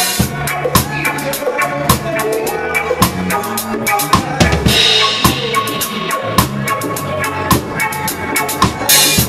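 A drum kit played close up in a live reggae band, with dense bass-drum, snare and rimshot hits over the band's steady groove. A cymbal crash rings about halfway through, and another comes near the end.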